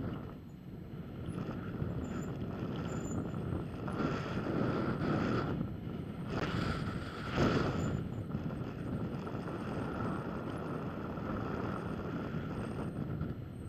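Wind buffeting the microphone of a bike-mounted camera while a mountain bike rolls over bare rock, a steady rushing rumble with a few louder gusts in the middle.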